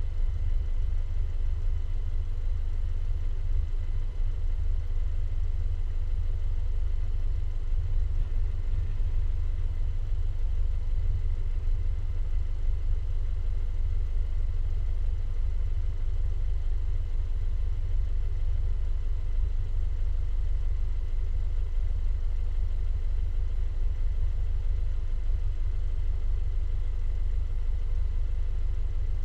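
Wind buffeting the camera's microphone: a steady, fluttering low rumble.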